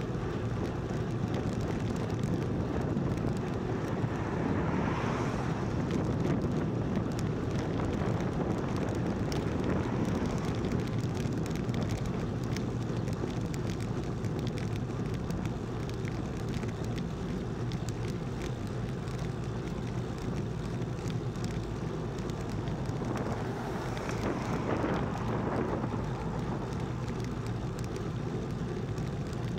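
Wind buffeting an action camera's microphone with steady road noise while riding a road bike at speed. Twice a broader swell rises and fades, about five seconds in and again some five seconds before the end.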